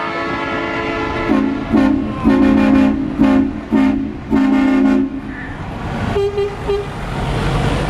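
Truck air horns sounding: a held blast, then a run of about six short blasts in quick succession, and two brief toots about six seconds in, as a Mercedes-Benz Actros tractor unit pulls out. The truck's engine rumble grows near the end.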